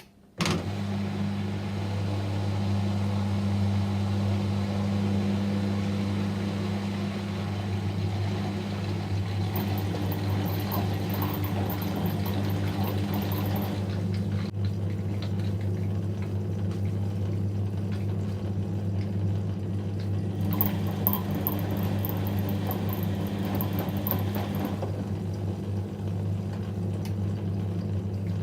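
Whirlpool washing machine on a 30° delicate cycle: a steady electric hum switches on abruptly less than a second in, with water running through the machine. Twice the hum carries extra hiss and rustle for a few seconds.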